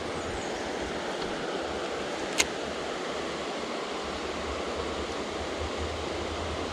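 Creek water running over rocks, a steady rushing hiss. A single sharp click about two and a half seconds in.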